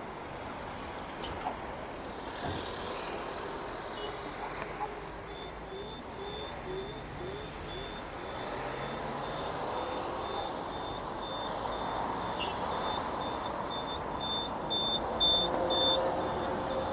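Street traffic passing, with a high-pitched electronic beep repeating about twice a second from about five seconds in, loudest near the end.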